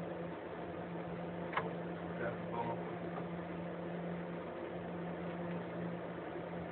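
Steady low background hum with an even hiss, broken by a faint click about a second and a half in and a few faint short sounds soon after.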